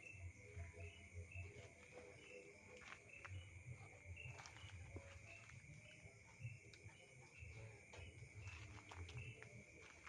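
Night insects calling: a steady high trill with short high chirps repeating about twice a second over it, faint, with low rumbles and scattered clicks underneath.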